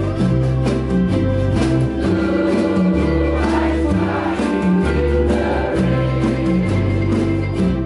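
Ukulele ensemble strumming together with electric guitar and a drum kit, playing a slow country ballad, with a group of voices singing along.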